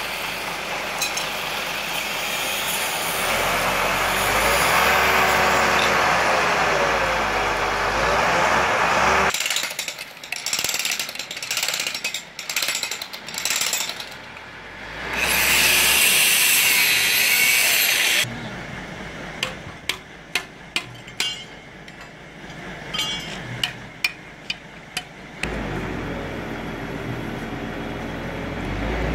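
A crane truck's engine runs while the boom lifts a steel mast, its pitch rising and falling. Then a handheld electric power tool runs in short bursts and one longer high whine, followed by a string of sharp clicks and knocks. An engine sound returns near the end.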